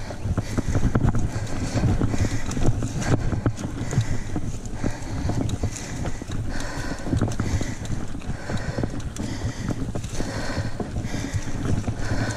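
GT Pantera Elite mountain bike rattling and clattering over rough dirt singletrack, with tyres rolling over dirt and leaves and a steady wind rumble on the camera microphone.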